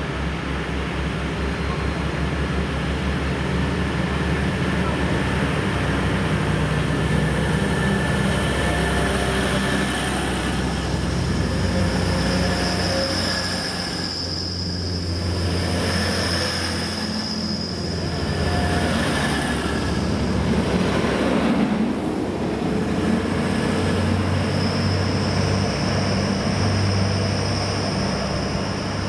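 A train running through a station: a continuous loud rumble of running noise with steady low engine or motor tones, and a high steady whine through the second half.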